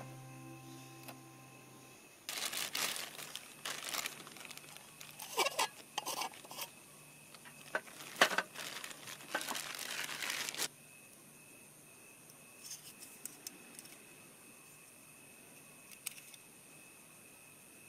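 Packaging crinkling and rustling with sharp tearing crackles for about eight seconds, then stopping abruptly; a few light clicks follow.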